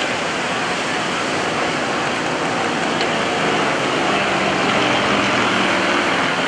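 Nine-cylinder radial engines of Yak-52 and Nanchang CJ-6 aerobatic aircraft droning overhead, with a low engine tone coming through and growing slightly louder about four seconds in, over a steady rushing noise.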